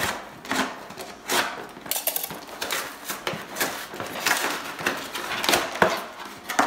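Utility knife slicing through packing tape and a cardboard shipping box, then the cardboard flaps being pulled open, a run of irregular scrapes and crackles.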